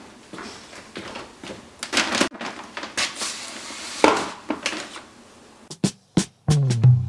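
Plant pots and repotting materials being handled on a hard surface: scattered light knocks and clicks, with a rustling, scraping stretch about three to four seconds in. Background music comes back in near the end.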